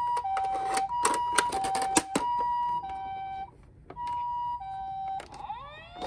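Toy ambulance's electronic two-tone siren sounding the Japanese "pee-poh" pattern, switching between a higher and a lower tone about every two thirds of a second, with sharp plastic clicks and clatter as the toy and its stretcher are handled. It stops briefly about three and a half seconds in, resumes, and near the end switches to a rising wail.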